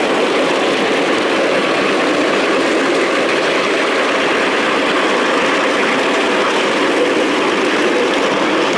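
Steady running noise of a ride-on miniature park railway train in motion: its wagon wheels rolling on the rails close by, with no breaks.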